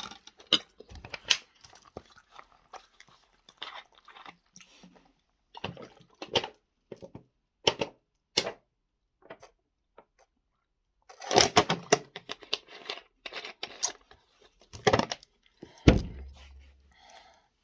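A person chewing and smacking a mouthful of spaghetti close to the microphone: irregular wet clicks and smacks, with a short pause about ten seconds in and a busier run of chewing just after.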